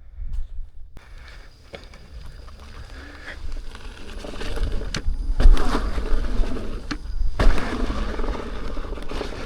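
Low rumble of wind on the microphone with crunching and scattered knocks and clatter of tyres and gear over a dirt and rock trail, starting about a second in and louder from about halfway.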